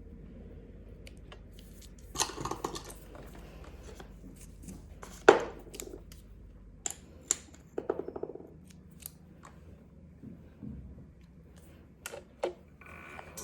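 Small manicure tools clicking and snipping in sparse, sharp strokes, with a short rapid rattling run about eight seconds in; no drill is running.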